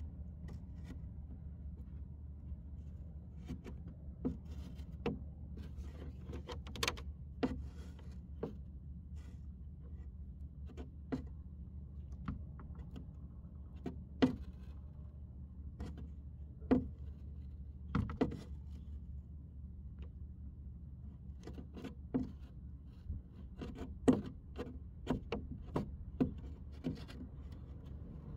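Hot stapler plastic-repair tool working a staple into a plastic truck splash guard: irregular sharp clicks and taps over a steady low hum.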